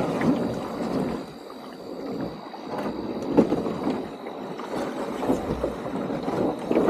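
River water moving and gurgling around a canoe as it is paddled, with a few light knocks.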